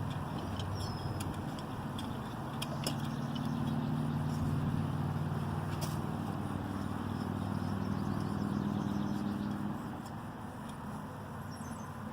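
A low, steady engine hum that grows louder about three seconds in and drops back near ten seconds, with a few light clicks of a small nut and tools being handled.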